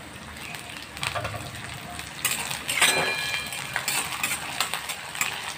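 Steel spatula stirring and scraping onions, green chillies and curry leaves around a kadhai, with repeated scrapes and clinks of metal on metal over frying in hot oil. About three seconds in, a sharper strike sets the pan ringing briefly.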